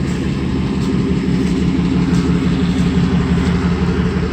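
A 2007 Lincoln Mark LT's 5.4-litre V8 idling steadily through dual Flowmaster exhausts, a low, even drone.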